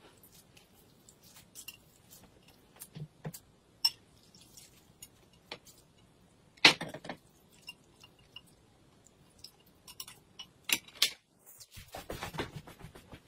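Chopsticks and ceramic bowls clinking and tapping now and then as noodles are lifted and dished from a large porcelain bowl into two small bowls, with one sharper knock about halfway through.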